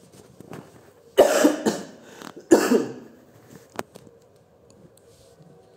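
A man coughs twice, about a second and a half apart, followed by a single sharp click.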